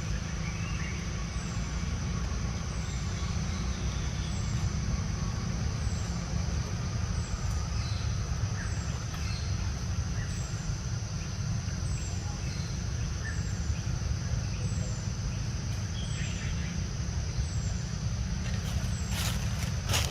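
Outdoor ambience: a steady low rumble under a constant high-pitched tone, with short falling chirps about once a second and a few faint calls. A few sharp clicks come near the end.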